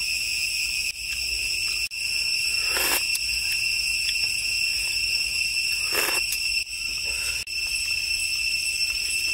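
Steady, high-pitched insect chorus droning without a break, dropping out briefly a few times. Two short louder noises stand out about three and six seconds in.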